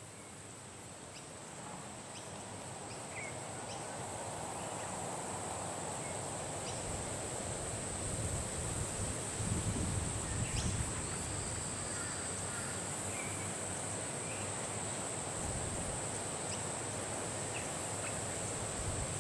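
Outdoor ambience: a steady high-pitched insect drone with scattered short bird chirps. A low rumbling noise grows louder over the first few seconds, with a few low bumps near the middle.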